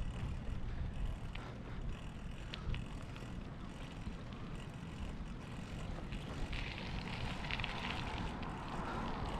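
Wind buffeting the camera microphone during a bicycle ride, with a few light ticks and a brighter hiss of the tyres in the second half.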